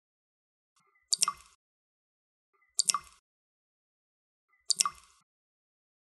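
Water dripping steadily: three drops land, a little under two seconds apart, each a short sharp hit with silence between.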